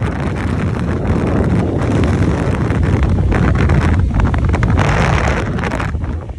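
Wind buffeting the microphone of a phone on a moving motorcycle, over the steady rumble of the motorcycle and the road.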